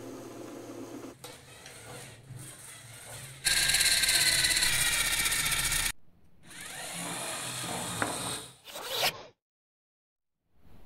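Small electric LEGO Power Functions motors and red knock-off copies whirring through plastic gears in several separate runs, the loudest a high whine lasting about two seconds in the middle. A sharp click comes about two-thirds through, then the sound cuts off to silence near the end.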